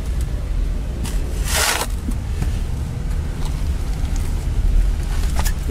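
A steel shovel blade scraping into packed dirt once, about a second and a half in, over a steady low rumble, with a few faint clicks of soil or stones near the end.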